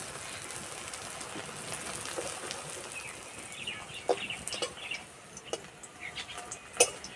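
Balls of chhana (fresh curd cheese) sizzling as they fry in mustard oil in an iron wok; the sizzle fades about halfway, with a few sharp clinks of the metal spatula. A chicken clucks in the background from about three seconds in.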